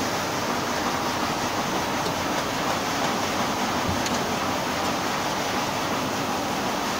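Heat-shrink tunnel of a sleeve shrink-wrapping machine running, its hot-air blower making a steady rushing noise with a faint low hum underneath.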